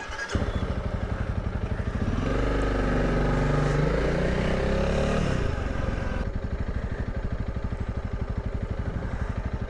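Honda CRF300 Rally's single-cylinder engine pulling away from a standstill: the engine note rises for a few seconds about two seconds in, then settles into steady low-speed running.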